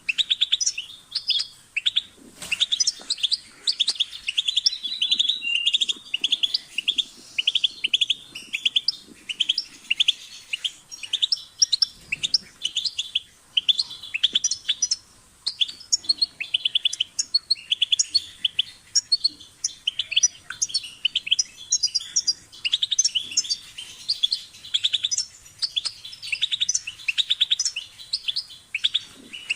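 European goldfinch singing: a fast, continuous twittering of rapid chirps and trills.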